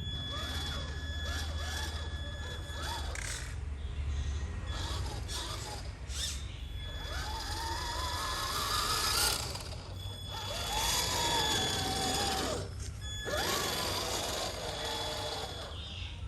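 Redcat Gen8 Scout II RC crawler's electric motor and gears whining as it is throttled, the pitch rising and falling in short runs, with three longer rising pulls in the second half.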